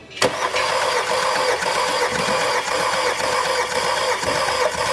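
Starter cranking the 2.0 TSI four-cylinder engine of a 2010 Volkswagen Tiguan with its spark plugs removed for a compression test on cylinder 2. It kicks in suddenly just after the start and keeps turning the engine over steadily without firing.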